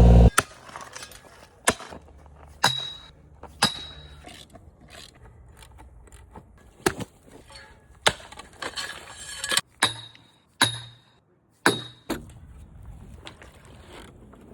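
Hammer blows on timber and nails, about eight sharp strikes at uneven intervals, several of them with a short high metallic ring.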